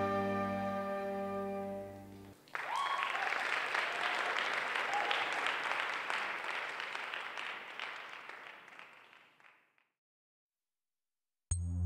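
The last held chord of the dance music ends about two seconds in, and the audience breaks into applause that slowly fades away. After a short silence, new music begins right at the end.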